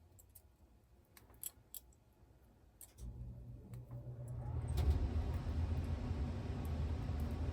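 A few faint clicks of scissors working against the thin wires of a network cable, then from about three seconds in a low rumble rises in and holds, louder than the clicks.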